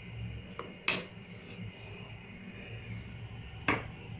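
Wooden spoon knocking against an aluminium pot of boiling rice: two sharp knocks about three seconds apart, with a faint steady low hum underneath.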